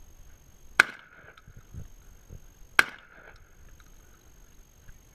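Two rifle shots about two seconds apart, each with a brief ringing after it.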